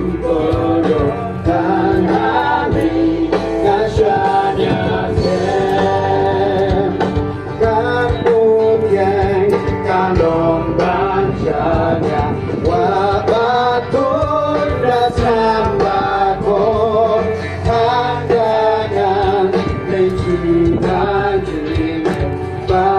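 Music with voices singing a slow melody over steady accompaniment.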